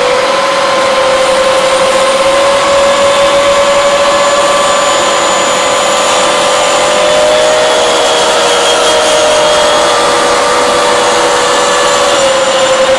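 DCA mini dustless table saw with a 4-inch blade running at full speed, a loud steady whine over the noise of the blade cutting along a pine board to trim its uneven edge straight.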